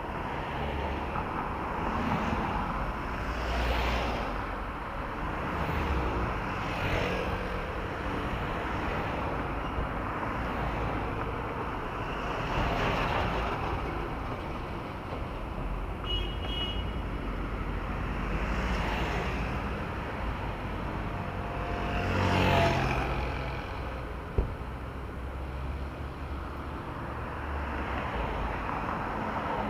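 Road traffic heard from a bicycle-mounted camera: a steady rush of road noise, with vehicles passing every few seconds and the loudest pass about two-thirds of the way through. A single sharp click comes late on.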